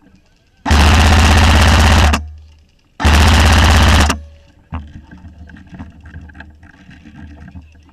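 Airsoft electric rifle firing two long full-auto bursts, a rapid even rattle of the motor and gearbox cycling, the first about a second and a half long and the second about a second.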